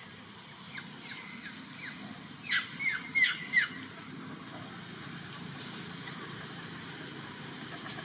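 A run of short, high, squeaky calls, each falling in pitch: four faint ones, then about five loud ones in quick succession about two and a half seconds in, over a steady low hum.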